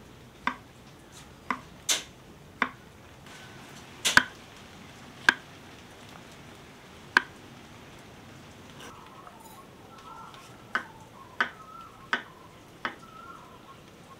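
Kitchen knife slicing button mushrooms on a wooden chopping board: about a dozen sharp knocks as the blade cuts through onto the board, irregularly spaced, with a pause of a few seconds in the middle.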